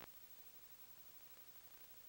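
Near silence: a faint steady hiss with no audio content, and a single brief click right at the start.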